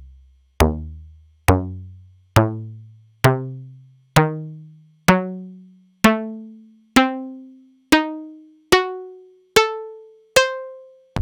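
Korg EX-800 synthesizer playing short plucked bass notes, about one a second, each striking sharply and quickly dying away, climbing one step higher with every note from a deep bass up into the middle range. A new, longer sound begins right at the end.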